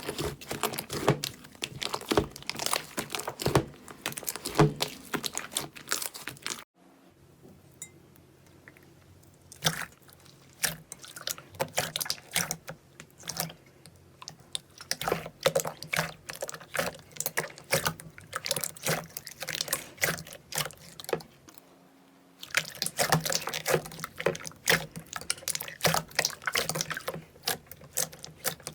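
Slime being squeezed and worked by hand: rapid wet clicking and popping. It changes suddenly about 7 seconds in to a quieter, sparser stretch, and again about 22 seconds in back to dense, louder popping.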